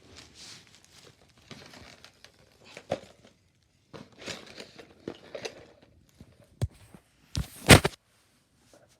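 Gift bags and packaging being handled, crinkling and rustling irregularly, with a sharp knock about two-thirds through and a louder cluster of knocks or bumps about three-quarters through.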